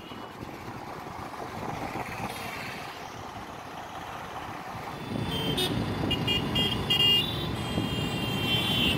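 Busy town road traffic, with motorcycles and cars passing. It grows louder about five seconds in, and a run of short horn toots sounds over the last few seconds.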